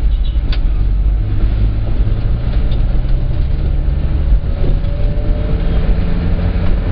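Minibus engine and road noise heard from inside the cab while driving, a steady low rumble, with a brief click about half a second in.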